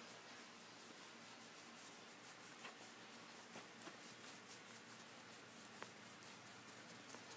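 Faint, rapid scratching and rubbing of fingers in a Shiba Inu puppy's fur, several strokes a second, with a few soft clicks.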